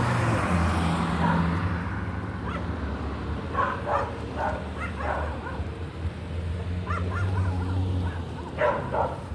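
A dog yipping and whining in short bursts, a few at a time, over a low steady hum.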